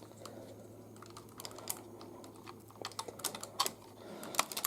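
Light plastic clicks and taps from a large plastic toy figure being handled, a few scattered at first and then a quick cluster in the second half.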